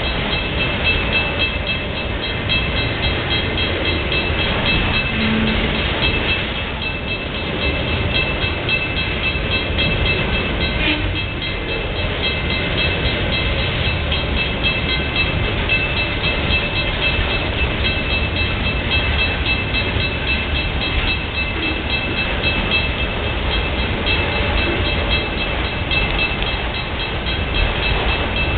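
Freight train of autorack cars rolling steadily past, with a continuous rumble of wheels on the rails. A grade-crossing bell rings steadily over it.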